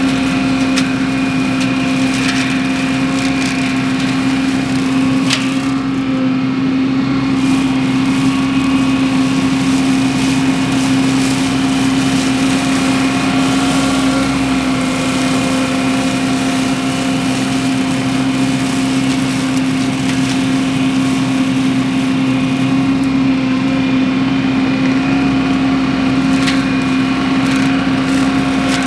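Wacker Neuson SM120 mini skid steer running at high throttle and driving a Baumalight MS530M hydraulic mulcher head, a loud steady drone with a strong hum. A few sharp knocks cut in, once about five seconds in and again near the end.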